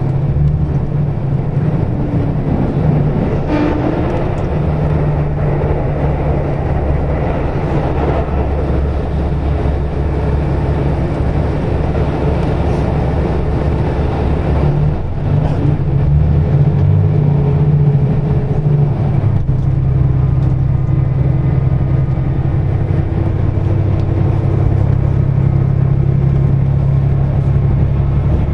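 KiHa 185 series diesel railcar running along the line, heard from inside the car: the steady drone of its diesel engine over the rumble of wheels on rail. The engine note shifts briefly about halfway through.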